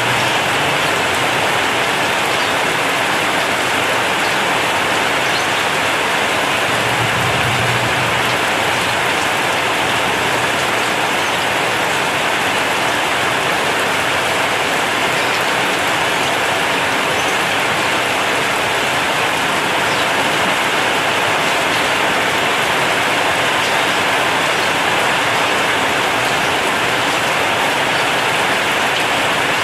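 Heavy rain falling steadily on a corrugated zinc roof.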